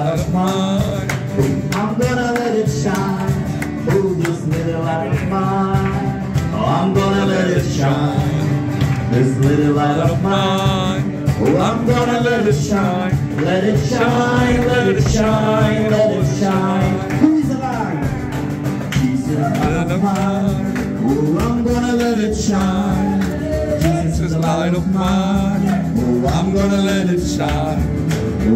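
Live Christian worship song: men singing a melody to acoustic guitar accompaniment, played by a small band in a room.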